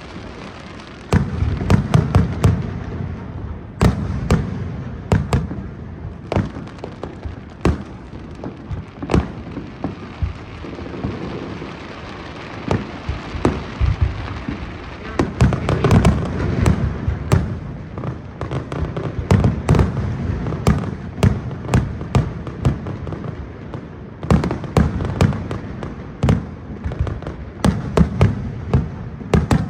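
Fireworks display: rapid flurries of sharp bangs and cracking shell bursts with low booming rumble, in repeated volleys that swell and ease.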